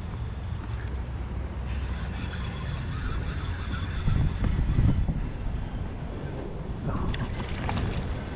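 Wind rumbling on the microphone, with a hooked pike splashing at the water's surface beside the kayak near the end.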